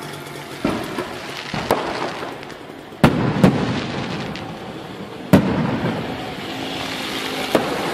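Aerial fireworks shells bursting: about half a dozen sharp bangs, the loudest about three and five seconds in.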